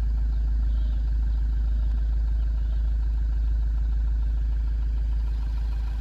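A loud, steady low rumble that holds level throughout, with no distinct events.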